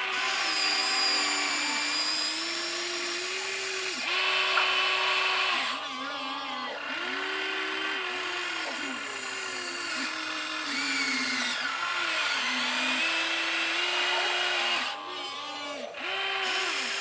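Huina 1593 RC excavator's small electric motors whining as the boom, arm and bucket move to dig sand. The pitch steps up and down and breaks off every second or few as each movement starts and stops.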